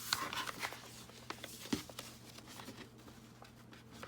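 Paper bag being handled and folded: light rustling and small taps of stiff paper, with a soft thump about two seconds in.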